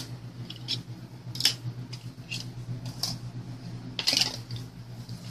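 Light plastic clicks and taps from hard styrene model-kit parts being set down and handled on a cutting mat, about half a dozen spread through, with a short cluster about four seconds in. A steady low hum runs beneath.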